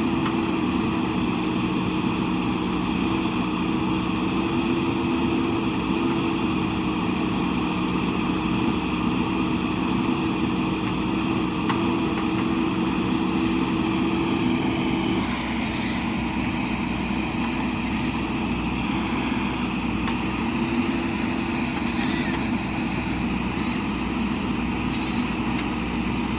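JCB backhoe loader's diesel engine running steadily; about halfway through, its note changes and it gets slightly quieter.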